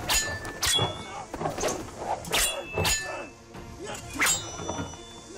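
Martial-arts fight sound effects: about five sharp hits and swishes of blows, spread over a few seconds, over background music.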